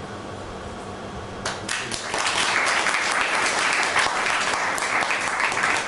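Audience applauding, beginning about a second and a half in.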